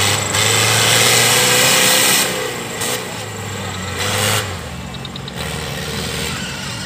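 Off-road 4x4 engine revving hard under load, its pitch wavering. The engine is loudest for the first two seconds and again briefly around three to four seconds in, then settles to quieter running.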